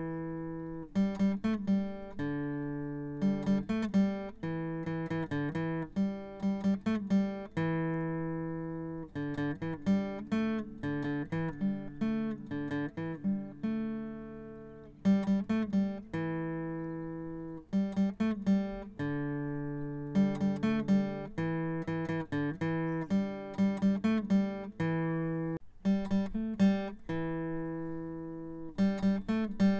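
Background music: an acoustic guitar picking a repeating melody of single plucked notes, each ringing and fading.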